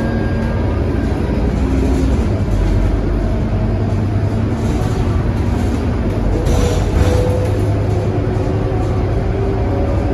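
Inside a Scania K230UB city bus under way: its rear-mounted diesel engine runs steadily under a constant rumble of road and tyre noise. About seven seconds in comes a brief, louder rush of noise.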